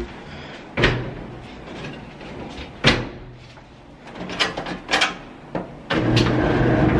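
Sharp clicks and knocks, some as a clothes dryer's timer dial is turned, then about six seconds in the dryer starts up: its motor comes on suddenly and runs with a steady low hum.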